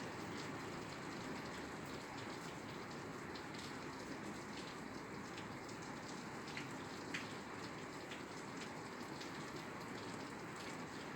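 Steady rain falling on a roof: an even hiss with scattered individual drops ticking, one sharper drop about seven seconds in.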